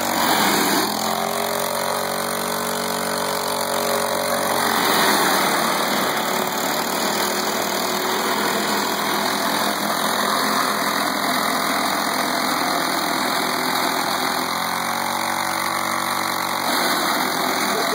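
Snapper rear-engine riding mower's small engine running steadily at idle while it smokes heavily.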